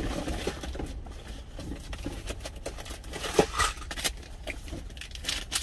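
Light rustling, clicks and taps of small things being handled and moved about, with one sharper click about three and a half seconds in, over a low steady hum.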